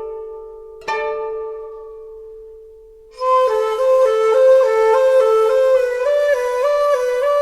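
Instrumental background music. A plucked note rings and fades about a second in. About three seconds in, a sustained melodic line enters, moving quickly back and forth between neighbouring notes.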